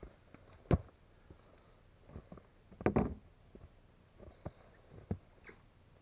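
Boots stepping on a small platform of round logs and then into snow: a few separate dull knocks and thuds, the loudest cluster about three seconds in.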